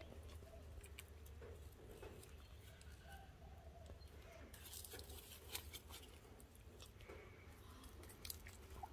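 Near silence: faint outdoor ambience with scattered soft clicks and rustles and a few faint, short chirps.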